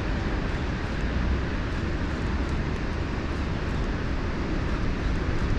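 Steady rumbling noise, heaviest in the low end, with no separate events: wind buffeting the microphone out on open water.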